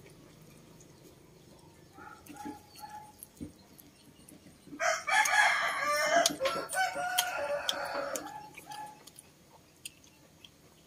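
A rooster crowing once: a long call starting about five seconds in and lasting about three seconds, with a few faint short calls a couple of seconds before it.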